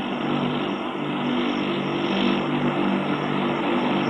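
Allison turboprop engine running on the ground, its 606 propeller turning, on an Electra power package. It makes a steady, dense drone with a low hum and a thin high whine above it.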